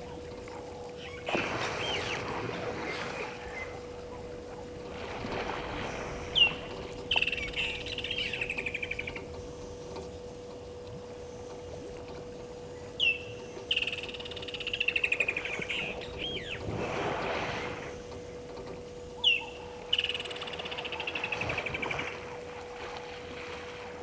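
Elephant splashing and wallowing in water in several washes. A bird calls three times, each call a sharp high note followed by a rattling trill that falls over about two seconds. A faint steady hum runs underneath.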